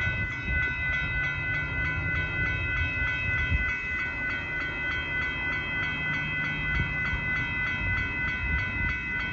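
Railroad grade-crossing bell ringing steadily in rapid, even strokes, over the low rumble of the approaching Amtrak Texas Eagle passenger train.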